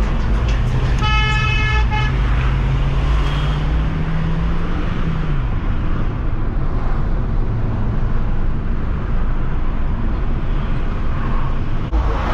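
Engine and road noise inside a Hyundai i20 driven fast through traffic. A car horn sounds for about a second near the start. The engine note climbs steadily for about four seconds, then falls away about five seconds in.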